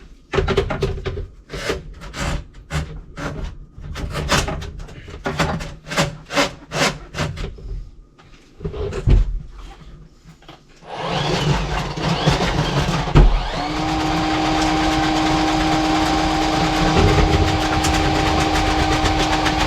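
A string of knocks and clicks, as of tools and pipe being handled. Then about eleven seconds in, an electric drain snake's motor starts and runs steadily, with a steady whine settling in a couple of seconds later.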